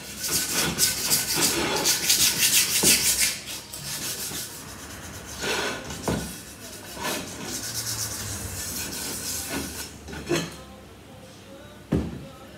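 Rapid back-and-forth scrubbing by hand on a Honda Dio scooter's metal wheel rim, rubbing off rust before it is painted. The strokes are densest and loudest in the first few seconds and then ease off, with a few knocks of the wheel on the wooden bench and a sharp clunk near the end.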